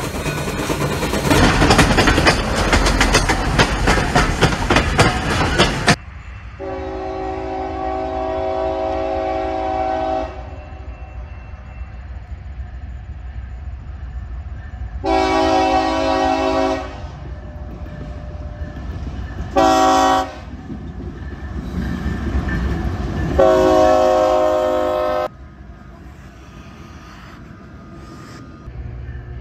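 Six seconds of loud, dense rushing noise that cuts off suddenly. Then a CSX diesel locomotive's air horn sounds the grade-crossing signal, long, long, short, long, over the steady low rumble of the train.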